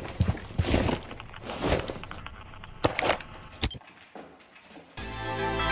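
Scattered sharp knocks and clacks, a few close together about three seconds in, then music with a steady beat starts near the end.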